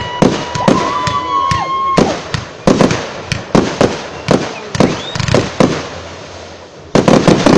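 Fireworks display: a run of sharp, loud bangs from exploding aerial shells at irregular intervals, with a quick volley of bangs near the end. A steady high whistling tone runs through the first two seconds.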